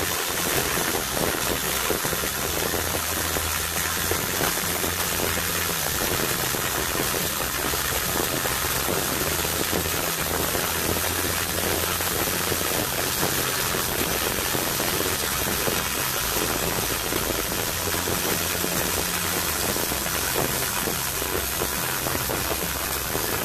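MIG welding arc on aluminium plate, fed with AlMg5 wire at 140 A and 19 V, hissing steadily and evenly throughout, with a low hum underneath.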